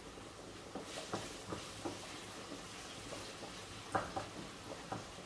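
Food frying softly in a pan on the stove while a wooden spatula stirs it, with scattered light knocks and scrapes against the pan, the strongest about four seconds in.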